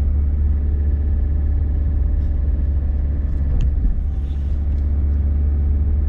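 Low, steady rumble of a van's engine and running gear, heard from inside the cabin while driving at low speed.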